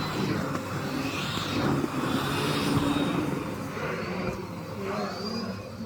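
Miele CX1 Blizzard bagless cylinder vacuum cleaner running steadily.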